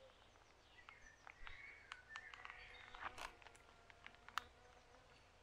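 Faint countryside ambience with a few short bird chirps and scattered light clicks.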